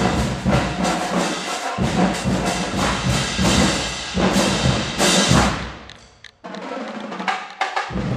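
Marching band playing a march-in tune with drums and horns. The playing breaks off briefly about six seconds in, then starts again, the low drums returning near the end.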